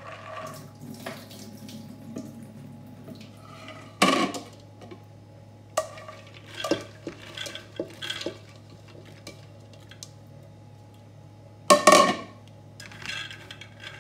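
Soaked beans being poured and scraped by hand from a bowl into an empty pressure cooker pot, rattling and clicking against the pot. There are two louder clanks, about four seconds in and again near twelve seconds.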